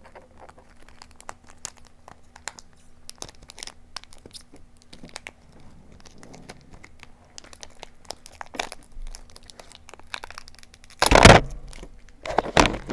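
Trading card booster pack wrapper crinkling as hands struggle with it, with many small crackles, then two loud tearing rips near the end as it is torn open.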